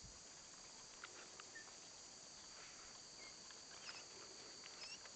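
Near silence: a faint, steady, high insect chorus, with a few soft rustles and clicks from dry leaf litter.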